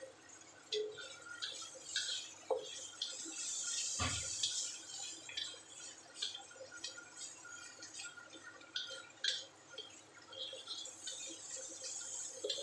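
Diced onion, tomato and green chilli sizzling and popping in a little liquid in a wok, with many small pops and clicks as a spatula stirs and scrapes the pan. One louder thump comes about four seconds in.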